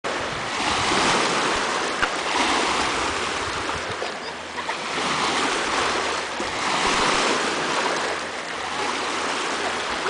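Small lake waves breaking and washing over a stony shore, the rush swelling and easing every couple of seconds.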